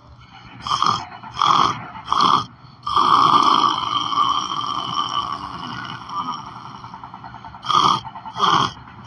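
A sleeper snoring loudly. Three short snoring breaths come about a second in, then a long drawn-out snore starts about three seconds in and fades over the next few seconds. Two more short snoring breaths follow near the end.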